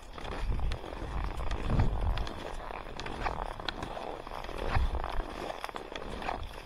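Cross-country skis scraping over snow in skate technique on an uphill climb, with irregular clicks of poles and gear and a low rumble on the microphone that swells twice.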